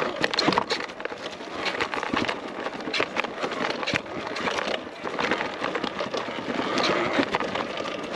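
Talaria Sting electric dirt bike being ridden off-road: a continuous noisy rush from the tyres and chassis over rough ground, broken by many sharp clicks and knocks.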